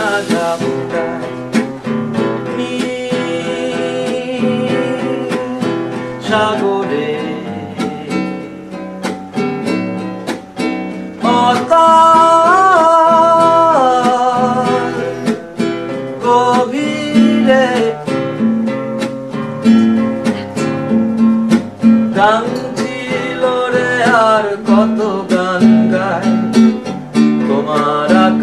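Bengali song with strummed acoustic guitar and a sung vocal line, including a long held note with slight bends in pitch near the middle.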